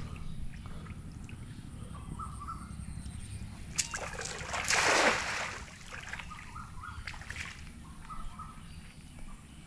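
A cast net hitting the pond: a brief loud splash about five seconds in as the weighted net lands and sinks, with a sharp click just before as it is thrown. Small bird chirps come now and then over a low steady rumble.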